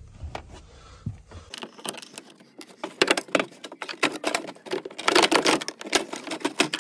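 Plastic trim clips and the plastic cover over a Toyota Camry Hybrid's battery pack being pried and pulled off: quiet handling at first, then a dense run of sharp plastic clicks and rattles from about three seconds in.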